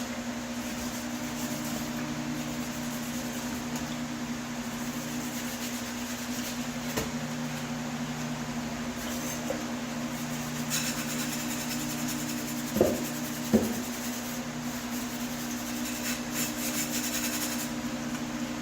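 A sanding sponge rubbing and scratching over the painted metal of an HVAC vent register, louder in stretches, with two short knocks about two-thirds of the way through. A steady hum runs underneath.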